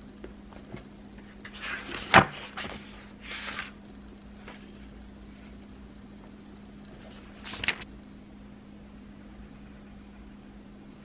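Pages of a paperback book being turned, paper rustling in a few short swishes, with a sharp paper snap about two seconds in that is the loudest sound. A steady low hum runs underneath.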